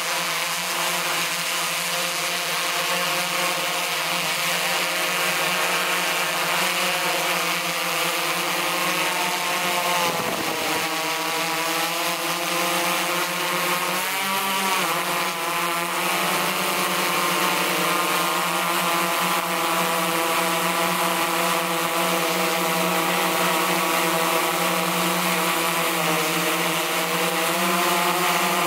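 Quadcopter drone's propellers and motors whirring with a steady hum and whine, the pitch dipping and wavering briefly twice near the middle.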